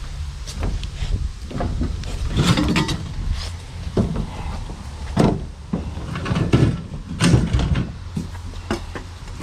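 Irregular knocks, clunks and scrapes, several a second apart, over a steady low rumble.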